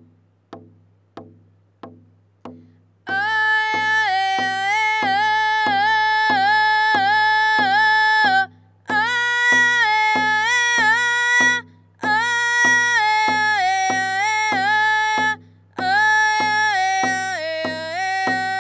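Rawhide frame hand drum struck with a padded beater in a steady beat, a little under two beats a second. About three seconds in, a woman's voice joins, singing in long held phrases with short breaks for breath.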